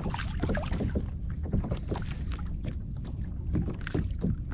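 Wind buffeting the microphone over water lapping and splashing in small irregular slaps around a kayak.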